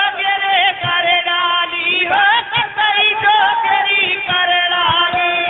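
Folk bhajan singing: a man's voice with an ornamented, wavering melody over held harmonium notes, with a few dholak strokes.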